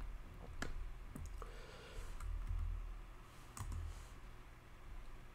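A few faint, separate clicks of computer keys as a command is entered, over a low background hum.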